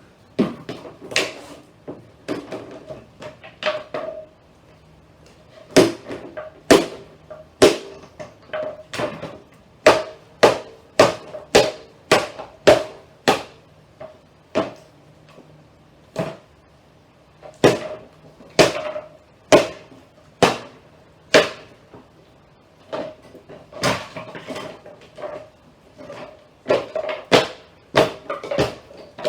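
Repeated hammer blows on the wood and particle-board cabinet of a console stereo, taking it apart: sharp, irregular strikes about one a second, each with a brief metallic ring.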